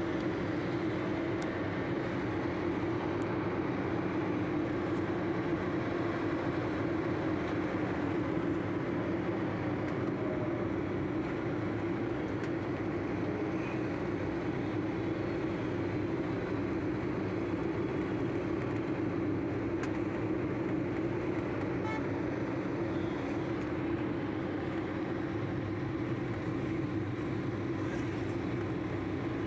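Steady engine and road noise heard from inside a moving vehicle, with a strong, even low hum.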